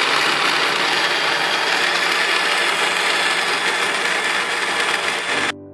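Personal electric blender running, its motor whirring as it purees fruit, then cutting off suddenly near the end.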